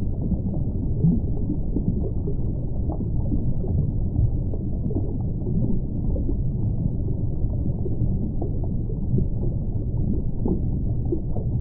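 Muffled underwater ambience: a steady low rumble and gurgle of water with faint scattered clicks.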